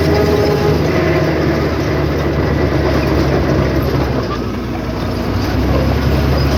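Heavy diesel engine of earthmoving equipment running steadily with mechanical clatter, its level easing briefly about four and a half seconds in before picking up again.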